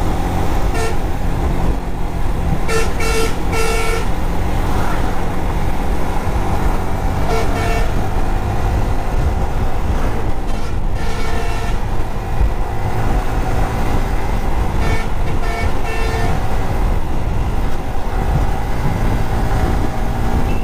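Yamaha sport motorcycle riding at highway speed, its engine and the wind making a steady rumble, while a vehicle horn sounds short toots, several times over, in quick groups of two to four.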